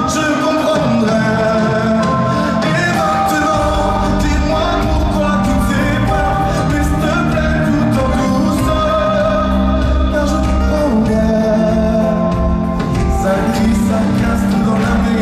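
Male pop vocalist singing live into a microphone over a band, amplified through a concert PA. A deep bass part comes in about three and a half seconds in.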